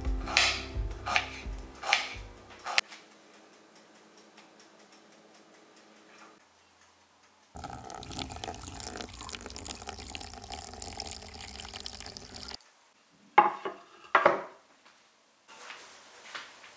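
A knife cuts through fresh ginger on a wooden cutting board, four sharp strokes. Then water pours in a steady stream into a glass mug for about five seconds, and two sharp clinks follow near the end.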